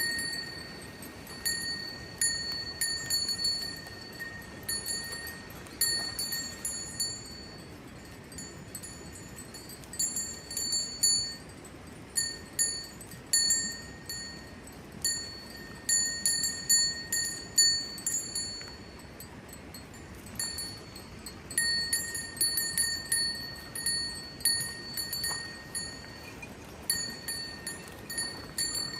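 Metal livestock bells clanking and ringing irregularly, in jangling clusters often several a second, with their tones ringing on between clanks over a steady background hiss.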